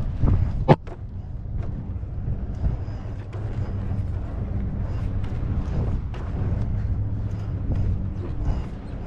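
King Song S18 electric unicycle rolling over rough asphalt: low tyre rumble mixed with wind on the microphone, scattered light clicks, and one sharp knock a little under a second in.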